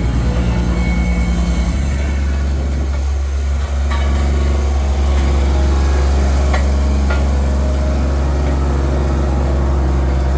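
Diesel engine of a Bomag BW 135 AD roller running during run-in after a major overhaul. It pulses evenly at first, then about two seconds in settles into a steady, deeper hum.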